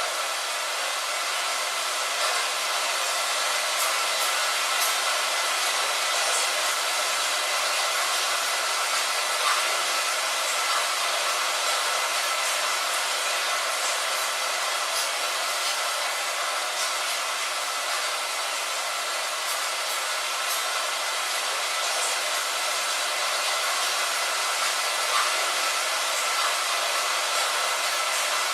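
Steady rain on a window: an even hiss with faint scattered drop taps.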